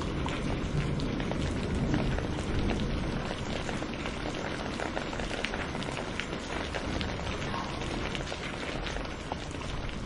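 Steady rain falling, a dense patter of many separate drops striking surfaces. A low rumble of distant thunder dies away in the first couple of seconds.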